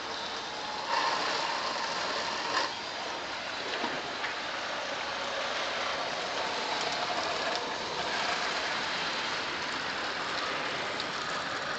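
Water spraying steadily from a hose onto a car's bodywork and mesh engine covers, a continuous splashing with a few small knocks in the first few seconds.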